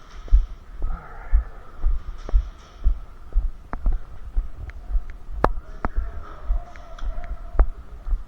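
Footsteps of a walking player, picked up through the body-worn camera as dull low thumps about twice a second. A few sharp clicks stand out, the loudest about five and a half seconds in.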